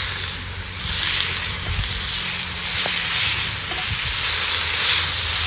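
Steak sizzling as it cooks over a campfire: a steady frying hiss that swells and fades, with a few faint pops.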